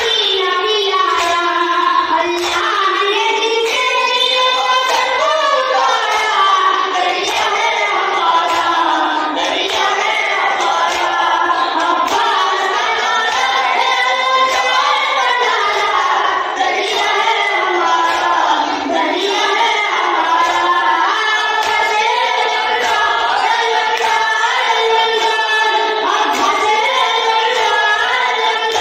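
A boy's voice chanting a noha, a Shia lament for Abbas, with men's voices joining in chorus. Rhythmic chest-beating (matam) keeps time beneath the singing.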